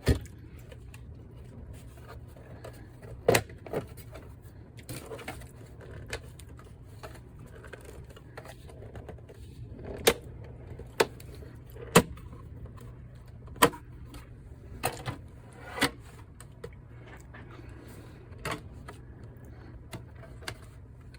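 Irregular sharp plastic clicks and knocks as a PS5 Slim console is handled and its casing opened.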